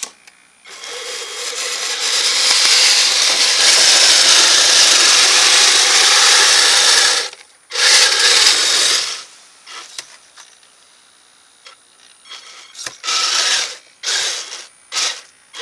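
Kyosho Blizzard FR radio-controlled snowcat driving, its motor and gear drive whirring with a mechanical rattle. One long run of about six seconds, then several short bursts of throttle.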